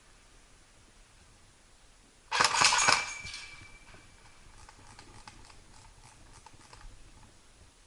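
Airsoft gun firing a short rapid burst of shots about two seconds in, followed by fainter scattered clicks over the next few seconds.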